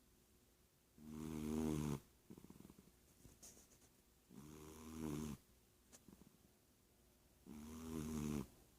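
Domestic cat snoring in its sleep: three snores about three seconds apart, each about a second long and swelling louder toward its end, with faint crackly breaths between them.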